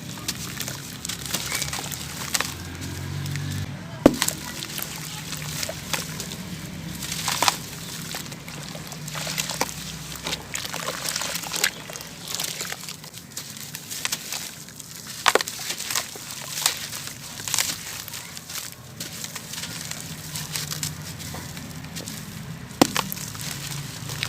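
Dried sand-cement chunks crumbling and being crushed by hand: irregular gritty crunches and crackles, with a few sharper snaps about 4, 15 and 23 seconds in.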